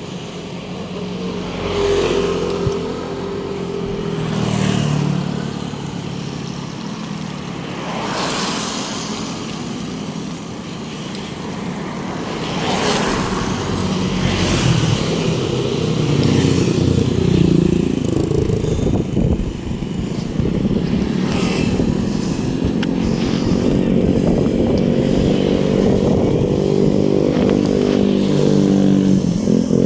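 Road traffic: motorcycle and car engines passing close by, one after another. About halfway through, a steady engine hum moves in close and stays loud.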